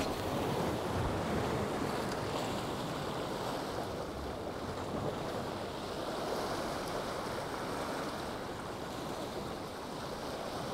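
Sea waves washing and breaking against jetty rocks, a steady rushing noise that rises and falls gently, with wind buffeting the microphone.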